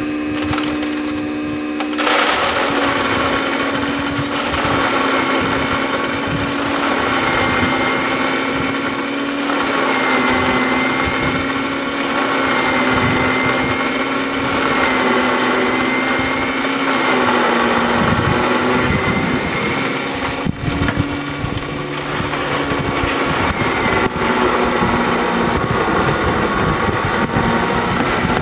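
A 1 horsepower continuous-feed garbage disposal running, grinding charcoal pellets. About two seconds in, a loud gritty grinding starts over the motor hum, and the hum dips slightly in pitch as the motor takes the load, with a few sharp clicks from the chunks later on.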